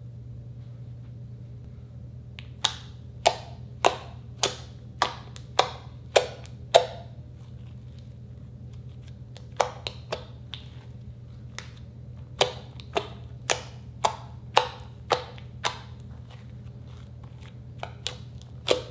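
Fingers poking into a blob of glossy slime, each poke giving a sharp pop of air, about one and a half a second in runs with short pauses between. A low steady hum sits underneath.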